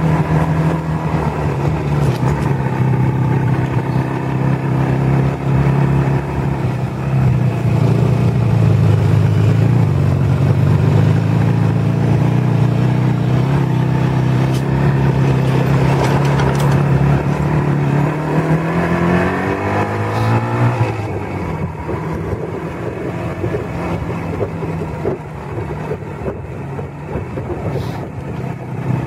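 Motorcycle engine running while riding at a steady speed. About twenty seconds in, its pitch climbs sharply, then it settles lower and quieter.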